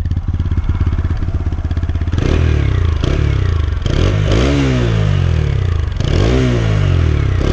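TVS Apache RTR 160 4V single-cylinder motorcycle engine and exhaust idling for about two seconds, then revved three times, each blip rising and falling back to idle.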